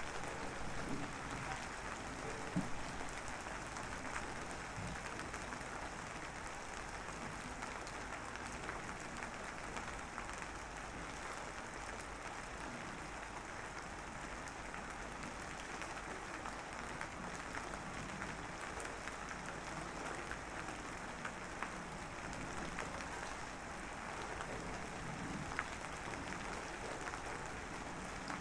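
Steady drizzling rain: a dense, even patter of fine drops with the odd louder drop.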